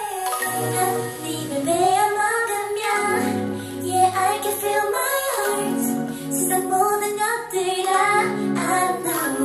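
K-pop girl group song: female voices singing a melodic, sung passage over light backing with little bass.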